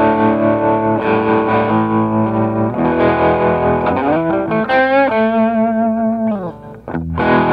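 Electric guitar with Southern Cross humbucking pickups, 1950s Les Paul wiring and linear 500k CTS pots, played through an amp: sustained chords, then a note sliding upward about four and a half seconds in and held as it fades. A last chord is struck near the end and stops short.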